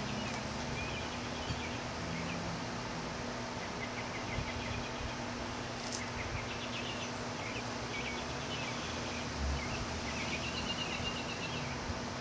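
Birds chirping in short repeated calls over a steady low hum and background noise, with a faint click about six seconds in and a brief low thump a few seconds later.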